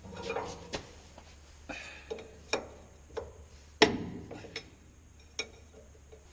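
Irregular metallic clicks and knocks of a wrench working on a hydraulic hose fitting at a wheel loader's steering cylinder, the loudest knock a little under four seconds in.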